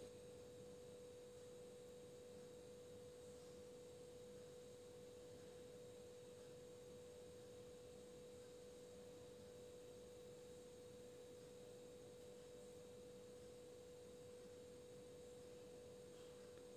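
Near silence with one faint, steady, unchanging tone.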